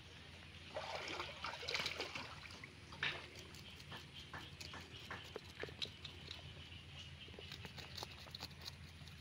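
Knife scraping the scales off a small fish against a wet concrete ledge: a series of short, sharp scrapes and clicks, densest about a second in. Shallow stream water runs and splashes around it.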